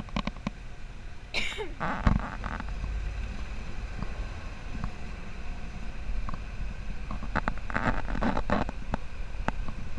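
Open-frame off-road buggy driving along a rough dirt trail: a steady low engine and wind rumble, with the frame knocking and rattling over bumps, most busily near the end.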